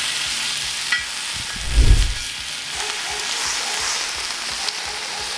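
Raw pork bacon sizzling as it fries on a very hot steel disco griddle, a steady hissing sizzle. There is a short click about a second in and a dull thump about two seconds in, the loudest moment.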